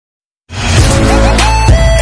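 Electronic music with a steady heavy bass, gliding synth notes and sharp drum hits, starting suddenly about half a second in.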